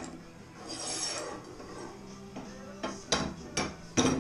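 Kee Klamp pipe fittings and steel tubes being handled: a metal scrape about a second in, then four sharp metal knocks, the last the loudest near the end.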